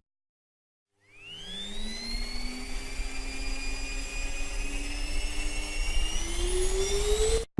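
Vacuum cleaner motor starting about a second in with a quick rising whine, then running steadily with its pitch creeping slowly higher, and cutting off suddenly near the end.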